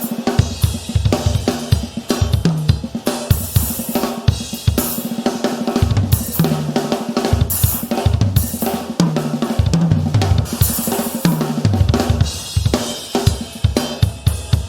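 Acoustic drum kit played continuously: fast strokes on snare and bass drum with cymbal crashes and hi-hat, and tom fills whose pitched low hits come in runs every few seconds.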